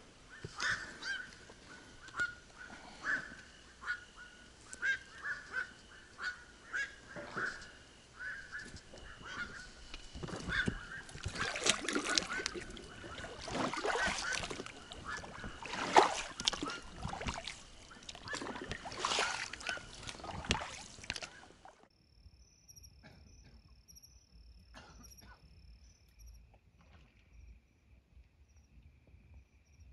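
A flock of wild geese honking as it flies overhead, the calls coming about once a second at first, then denser and louder toward the middle. About 22 seconds in the calls cut off abruptly, leaving only a faint, high, steady trill.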